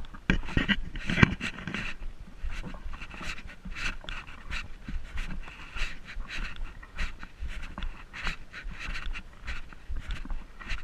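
Heavy, rhythmic panting close to the microphone, a new breath about every second, with scattered clicks and scuffs.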